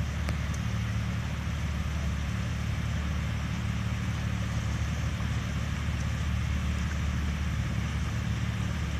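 An off-road vehicle's engine idling steadily, with an even rushing hiss over it.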